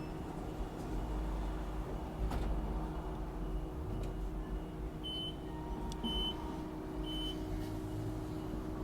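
Steady low hum of room background noise, with three short high-pitched beeps about a second apart in the second half and a few faint clicks.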